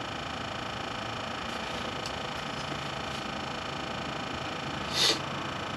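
Steady background hiss with a faint even hum, and a single brief rustle about five seconds in.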